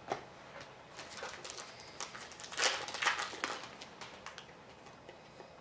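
A hockey card pack and its cards being handled: crinkling and rustling of the pack wrapper and card stock with light clicks, busiest about two and a half to three and a half seconds in.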